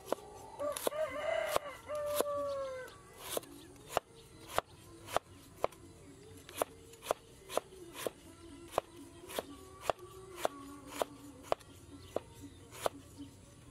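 A cleaver chopping galangal root into thin slices on a wooden cutting board, each stroke a sharp knock on the board, about two a second. Near the start a rooster crows once, a single call lasting a couple of seconds.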